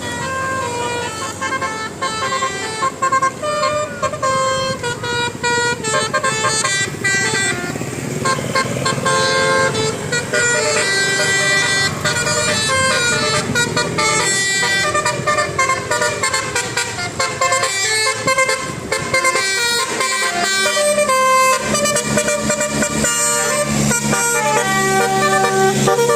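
Basuri telolet multi-tone bus horn playing a quick tune of stepped, changing notes throughout. A steady low hum joins it about three quarters of the way through.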